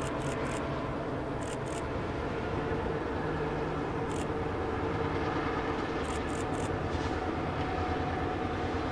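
Two diesel locomotives running steadily as they haul a passenger train past, with a low engine drone throughout. Paired clicks, the coach wheels crossing rail joints, come every second or two.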